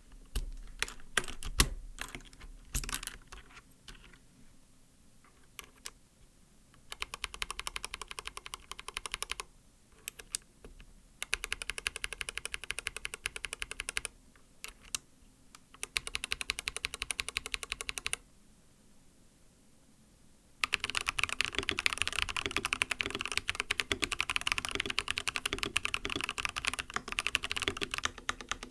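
Lubed MMD Coral tactile, non-clicky keyboard switches being pressed: a few single presses first, then runs of rapid repeated keystrokes a couple of seconds long. The last run is the longest and loudest, about eight seconds.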